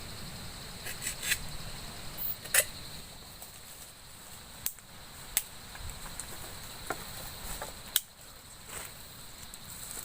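Forest insects droning steadily at a high pitch, with scattered sharp clicks and knocks, about one every second or so.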